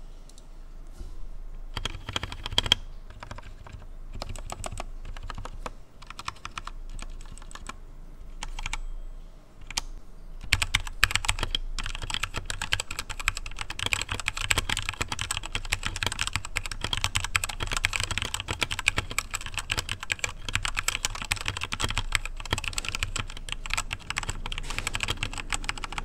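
Typing on a stock Redragon Fizz K617 60% mechanical keyboard with Outemu switches. Scattered single keystrokes for about ten seconds, then fast continuous typing.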